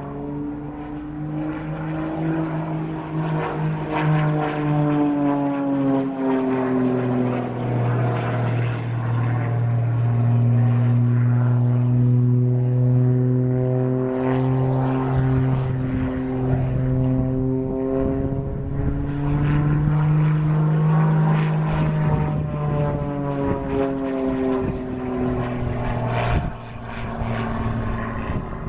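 Single-engine propeller aerobatic plane flying manoeuvres overhead. Its engine and propeller drone rises and falls in pitch several times: a long slide down a few seconds in, a rise again about two-thirds through, then another fall.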